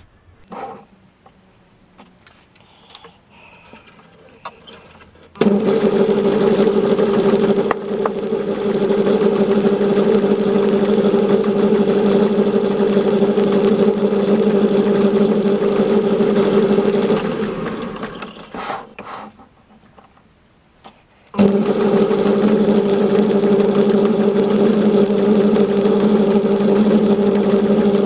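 Metal lathe switched on about five seconds in and running with a steady hum while a hole is drilled into the spinning workpiece from the tailstock. It is switched off and runs down a few seconds before the end of that first run, then is started again about three seconds later and runs on steadily.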